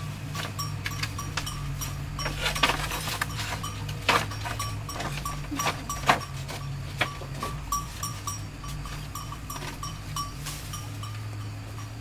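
Irregular sharp knocks and taps, over a short high peep that repeats two or three times a second and a steady low hum.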